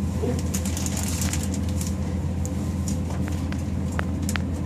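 Steady low hum of laboratory ventilation, with light scattered clicks and rustles from a plastic funnel and bag being handled while food scraps are fed into a plastic digester bottle.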